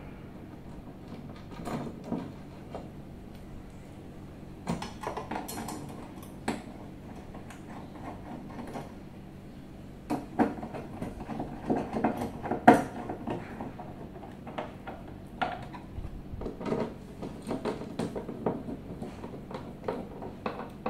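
Metal wall-mount brackets and their screws being fitted to the back of a flat-screen TV with a hand screwdriver: scattered small metallic clicks and knocks, busiest about ten to thirteen seconds in.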